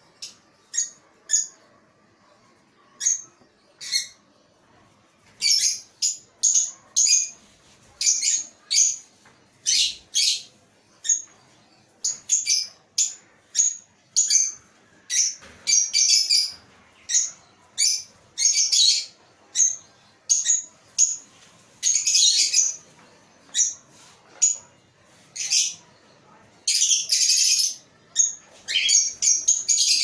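Aviary lovebirds and a cockatiel chirping: short, high-pitched calls, scattered at first, then coming thick and fast, with two longer calls in the second half.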